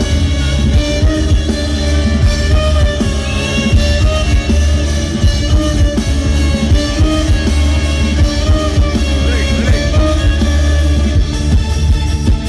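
Loud rock band music with guitar, heavy bass and drum kit, played steadily throughout.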